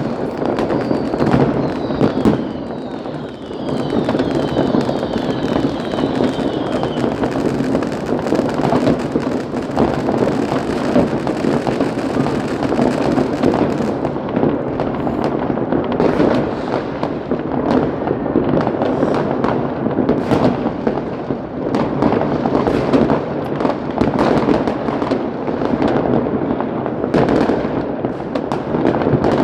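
Fireworks going off continuously: many overlapping bangs and crackles with no break, and a few whistles falling in pitch in the first several seconds.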